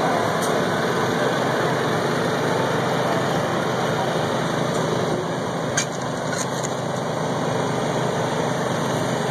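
Small portable generator engine running steadily, a constant drone, with a single brief click about six seconds in.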